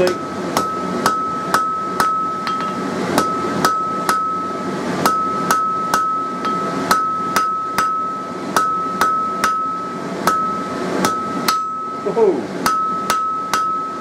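Hand hammer striking hot mild steel on an anvil in steady blows, about two a second, drawing out a square taper. A steady high ring from the anvil carries between the blows.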